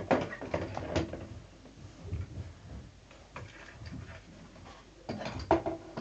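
Knocks, clicks and rattles of a carpet cleaner's plastic parts being handled and fitted together, with the sharpest knocks in the first second and another cluster about five seconds in.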